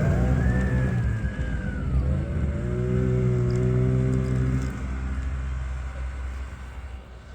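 Snowmobile engine running loudly, surging again about three seconds in, then fading away toward the end.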